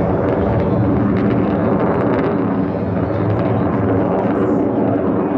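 Loud, steady jet engine noise from Blue Angels F/A-18 Super Hornets flying over.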